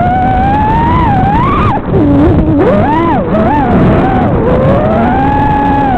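FPV quadcopter's brushless motors and propellers whining, the pitch rising and falling with the throttle. It climbs to a peak, drops sharply about two seconds in, climbs again and wavers, then holds a steady high pitch near the end.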